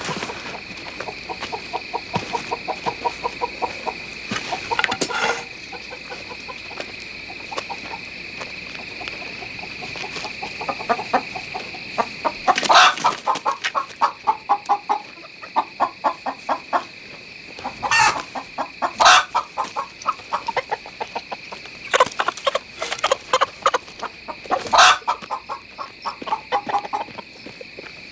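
Chickens clucking rapidly and nervously, broken by several loud, sudden squawks, mostly in the second half.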